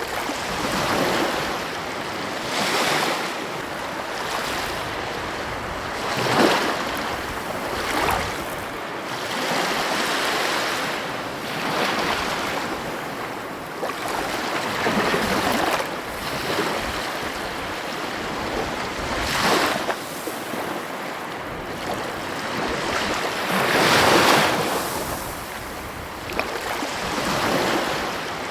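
Ocean surf breaking and washing on a beach, surging and ebbing every few seconds, with the strongest surges about six seconds in and again about twenty-four seconds in.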